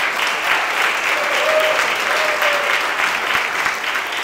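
Audience applauding steadily, a dense crackle of many hands clapping, with a couple of brief voices calling out about a second and a half and two and a half seconds in.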